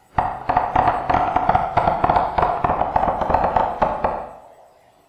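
Hand claps layered on three tracks and played through Audacity's GVerb reverb as a crude imitation of applause: a dense run of overlapping claps with a ringing, hall-like reverberant tail. The claps stop after about four seconds and the reverb fades out.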